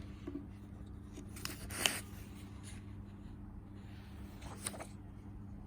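Paper rustling as a book page is handled and turned: a short rustle about two seconds in and a lighter one near the end, over a low steady hum.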